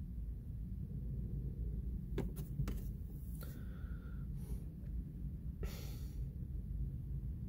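Steady low rumble inside a car cabin, with a few sharp clicks about two to three seconds in and short rustles near the middle and about six seconds in, from the phone being handled as the shot is zoomed.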